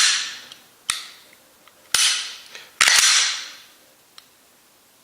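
Unloaded Glock 19 Gen5 pistol with a Ghost Evo Elite connector being dry-fired and its slide worked to reset the striker. It makes a string of sharp metallic clicks and snaps, roughly one a second, each ringing briefly. Two come close together about three seconds in.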